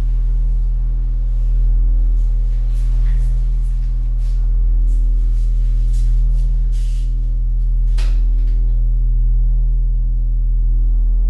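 Low ambient drone of several sustained tones, swelling and fading about every two seconds, with a short sharp click about eight seconds in.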